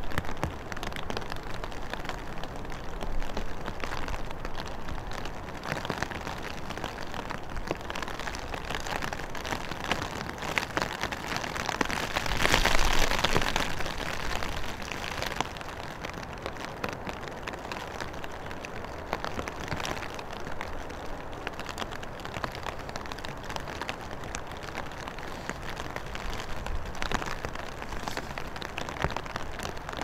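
Steady rain and wind noise with no clear engine tone, swelling to a louder rush of noise about halfway through.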